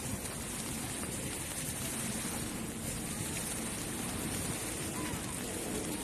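Steady noise of wind and lapping bay water, with faint distant voices.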